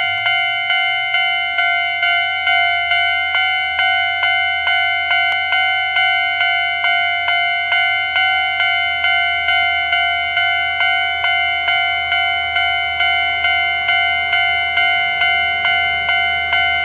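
Japanese railway level-crossing warning bell ringing steadily, evenly repeated strikes a bit under three a second, the signal that a train is approaching and the crossing is closing. A low steady hum lies underneath.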